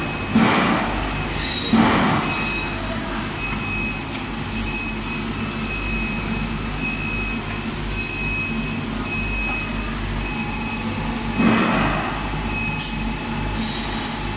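Overhead transfer wagon of a single-wagon vat phosphating line travelling on its rail with a loaded rack of parts: a steady machine hum with a constant high whine. Short louder rushing bursts come twice near the start and once about eleven seconds in.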